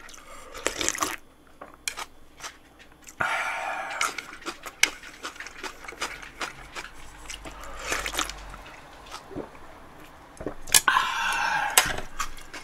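A person slurping cold mul-naengmyeon broth straight from a large bowl: about four long slurps, with small swallowing clicks in between.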